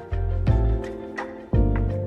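Background music: a beat with deep bass notes that drop in pitch, sustained chords and regular percussion hits.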